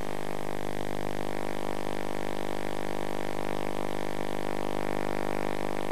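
A sustained synthesizer chord, held unchanged at an even level with no beat or melody.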